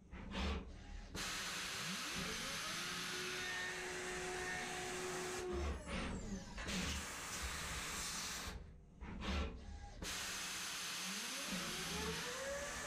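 5-axis CNC milling machine cutting eyewear frame stock: a steady hiss of cutting, with the spindle whine rising in pitch about 2 s in and again about 11 s in, holding a steady tone for a few seconds between. There are brief quiet breaks near the start and about 9 s in.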